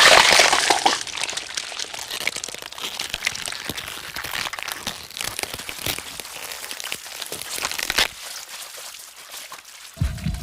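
Transformation sound effect. A loud rushing noise fades into dense crackling and crunching clicks, which thin out and grow quiet about eight seconds in.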